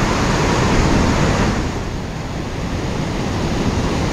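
Ocean surf breaking and washing up a sandy beach, a loud steady rush that swells about a second in and eases slightly after.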